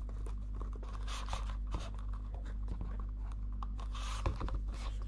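Small cardboard box flap being worked open by gloved fingers: scattered scrapes, rubs and small clicks of card, with a louder scrape about four seconds in.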